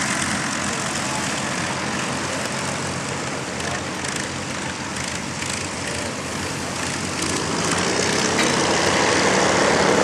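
Avro Lancaster bomber taxiing, its four Merlin V12 piston engines and propellers running steadily, growing louder near the end as it comes closer.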